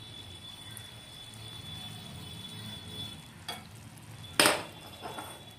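Boiled egg halves being set into curry gravy simmering in a frying pan, over a low steady hum. There is a light click about three and a half seconds in, and a sharp knock, the loudest sound, about a second later.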